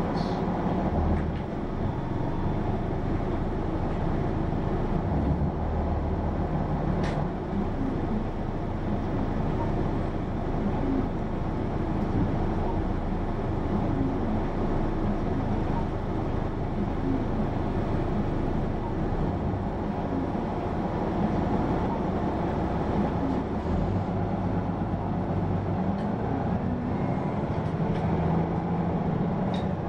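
Running sound of a Hino PA-KR234J1 city bus heard from inside: a diesel engine drone with road noise, the engine note rising and falling several times as it drives. A single sharp click about seven seconds in.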